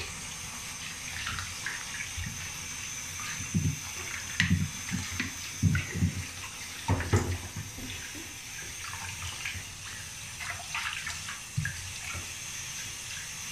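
Water running steadily from a bathroom tap into a plastic basin. Irregular splashing and sloshing as hands scoop water over a chihuahua standing in the basin, heaviest a few seconds in.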